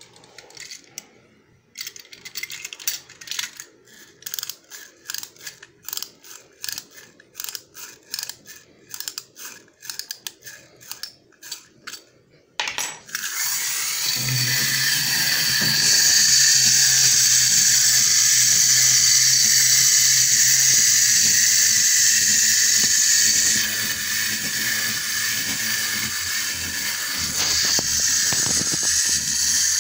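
Clockwork of a Lilliput tin wind-up robot: a long run of ratchet clicks as the key is wound, then, about 13 seconds in, the released spring motor runs with a loud, steady mechanical whir as the robot walks.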